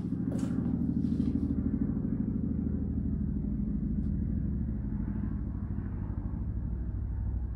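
A steady low mechanical rumble with a fast fluttering texture, with a few light rustles in the first second or so.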